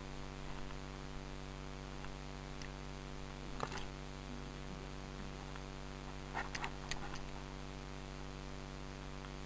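Steady electrical hum from the recording, broken by one sharp click about three and a half seconds in and a quick run of four clicks a little before the seven-second mark.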